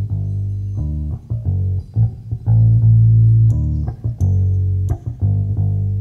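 Live jazz-fusion band on a cassette recording: an electric bass plays prominent held low notes. From about three and a half seconds in, sharp drum-kit cymbal strokes come in.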